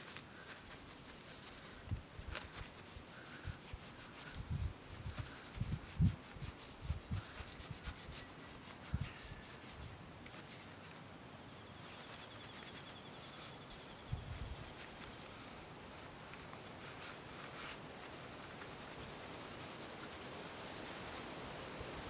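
A bunch of tea tree leaves rubbed back and forth over a painted wooden club to wipe off excess white ochre, making a faint steady scrubbing. There are several low bumps in the first half and one more about two-thirds of the way through.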